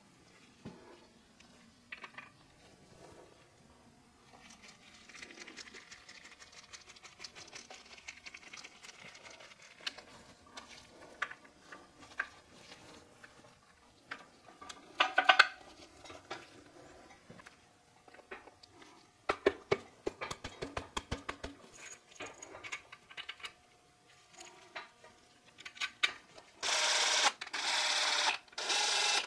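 Light metal clicks and clinks as front locking-hub parts and a snap ring are fitted by hand into a truck axle hub. Near the end a cordless drill runs for about two seconds, driving in the hub cover screws.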